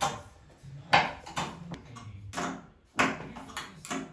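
Sharp metallic clicks and knocks from a cavity sliding door's aluminium top track as the soft-close activator is handled in it, about six in all and irregularly spaced, the loudest about one second and three seconds in.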